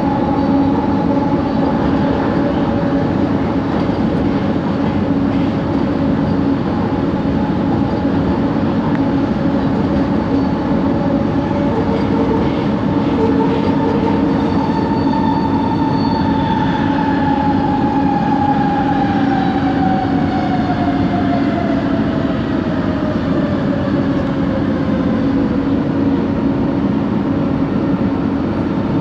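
Inside an LRT coach: electric train running, with rolling rumble and a steady motor hum, the unusual traction motor noise coming from this coach. About halfway through, a motor whine falls steadily in pitch over about ten seconds as the train slows.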